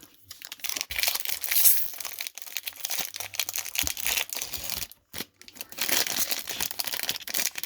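Foil wrapper of a baseball card pack crinkling and tearing as it is opened by hand, with a short pause about five seconds in.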